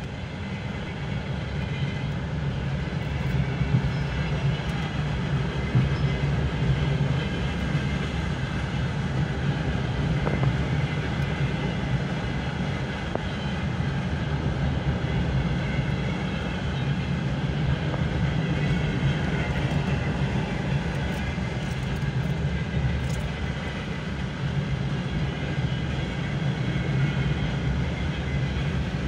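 Freight train of open wagons rolling past, heard from inside a car: a steady low rumble of steel wheels on the rails.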